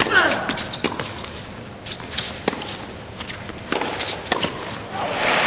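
Tennis ball struck back and forth by racquets in a rally on an indoor court, a series of sharp hits, ending with a volley at the net. Crowd applause swells near the end as the point is won.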